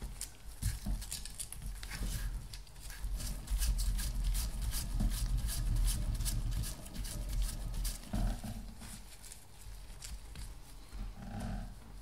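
Sandpaper rasping against the copper slip rings of a car alternator's rotor in quick repeated strokes, polishing off scuffing and blackening left by the brushes. The strokes are strongest through the first eight seconds, then lighter.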